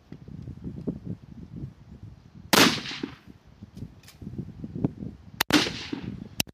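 Two rifle shots on a firing line, one about two and a half seconds in and another about three seconds later, each with a long echoing tail; sharp cracks sound around the second. Gusty wind rumbles on the microphone in between.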